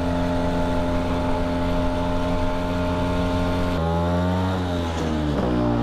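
1974 Vespa Rally 200's two-stroke single-cylinder engine running under way at a steady pitch. About four seconds in, the pitch drops and keeps falling as the scooter slows, then settles lower.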